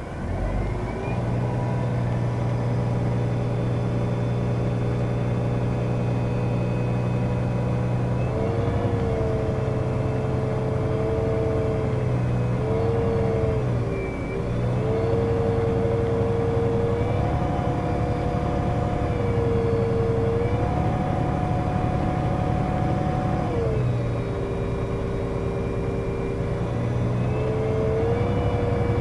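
Iveco Crossway 14.5 LE bus with a Voith automatic gearbox under way, heard from inside the passenger cabin: a steady low engine drone and road noise, with a whine that steps up and down in pitch several times as the bus changes speed.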